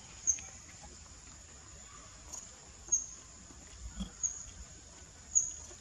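Short, high-pitched animal squeaks, four of them about a second apart, over a steady high-pitched whine.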